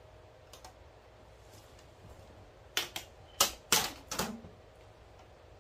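A run of four or five sharp snaps and cracks, starting about halfway through, as the thin LCD panel of a TV is lifted and flexed off its backlight frame.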